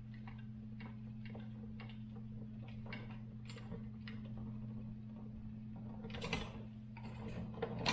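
Light, irregular clicking, a few clicks a second, from a screwdriver tightening a wire into the smart switch's terminal, with a louder rustle of handling about six seconds in. A steady low hum lies underneath.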